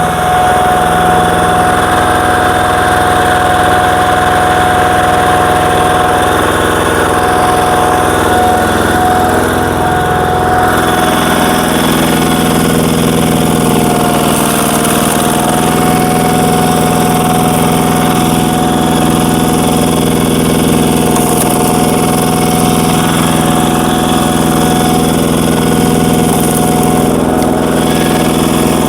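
Walking power tiller's single-cylinder diesel engine running at full throttle, driving a screw log splitter through its belt and clutch. The steady engine note wavers briefly about ten seconds in and again a few seconds later.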